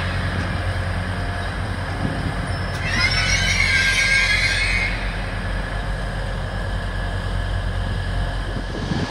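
Hull Trains Class 180 diesel multiple unit moving slowly along a station platform, its engines giving a steady low hum. Its wheels squeal, a wavering high-pitched squeal for about two seconds starting some three seconds in.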